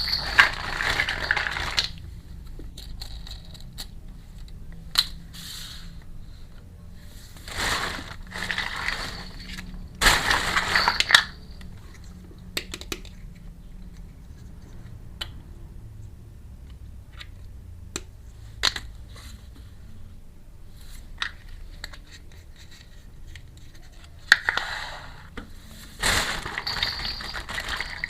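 Packaging crinkling and rustling in several bursts as miniature toy kitchen pieces are unboxed. Scattered light clicks and taps of small toy pieces being handled come between the bursts.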